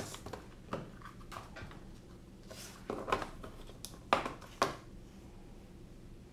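A handful of light, short knocks and rustles of small objects being handled and set down on a desk in a small room.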